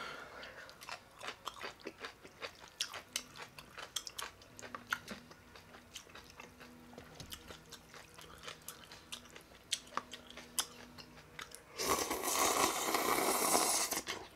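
Close-up chewing with wet mouth clicks and smacks, then, about twelve seconds in, a loud slurp of ramen noodles lasting about two seconds.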